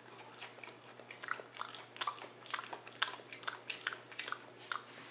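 Close-up crunching and chewing of tortilla chips from a Nacho Bell Grande, sharp crunches coming irregularly several times a second.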